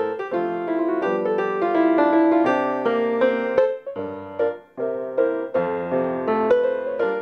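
Piano music: a lively run of notes, with a brief break about four and a half seconds in.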